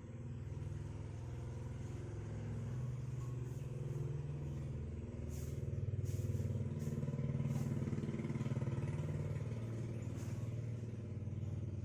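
An engine running steadily with a low, even hum, with a few faint clicks over it.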